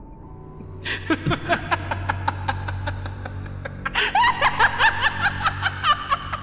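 A woman's acted laugh begins about a second in as a low, quick chuckle. About four seconds in it breaks into louder, higher-pitched laughter. A low droning music bed runs underneath.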